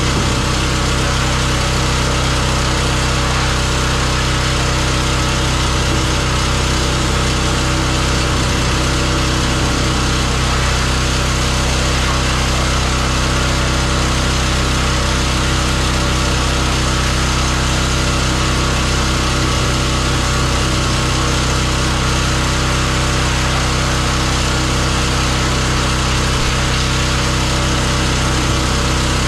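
Pressure washer running steadily, its motor drone under the hiss of the water jet.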